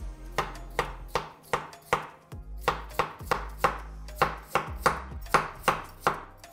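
Chef's knife slicing peeled raw potatoes into thin rounds on a wooden cutting board. Each stroke ends in a sharp knock on the board, about three cuts a second, with a short pause about two seconds in.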